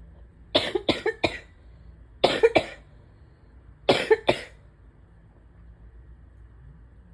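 A person coughing in three short fits of three or four coughs each, about a second and a half apart. It is a chest cough during a flare of allergy-driven asthma.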